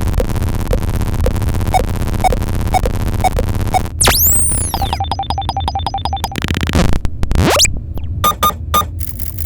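Retro-futuristic sci-fi computer sound effects in quick succession: a dense processing chatter with a blip about twice a second, then crossing pitch sweeps about four seconds in, rapid beeping over a steady tone, a quick rising sweep, and a few short beeps, all over a low hum of background ambience.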